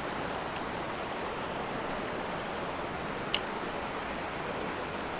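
Steady rush of flowing stream water, with one sharp click a little over three seconds in.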